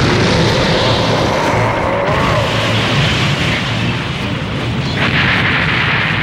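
Anime battle sound effects: a loud, continuous rushing blast of noise with faint music under it. About five seconds in, the noise turns brighter and hissier as flames burst across the screen.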